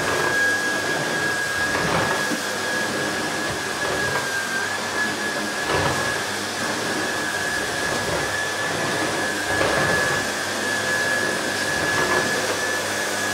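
Miele Revolution 500 S556 canister vacuum cleaner running on carpet, its motor giving a steady high whine, with a faint swish every few seconds as the floor head is pushed back and forth.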